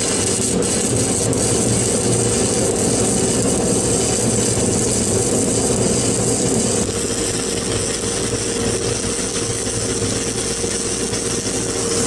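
Stick (shielded metal arc) welding with 7018 electrodes: the arc crackles and hisses steadily as overlapping beads of a buttering layer go down on a steel plate. A steady machine hum runs underneath.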